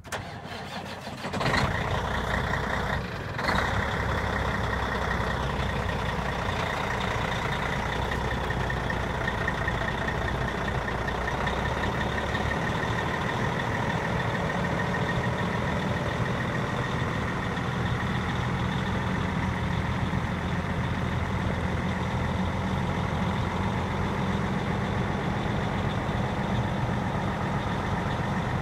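Caterpillar C-15 diesel in a 2006 Peterbilt 379 truck tractor cranking and catching about a second and a half in, faltering briefly a second or so later, then settling into a steady idle.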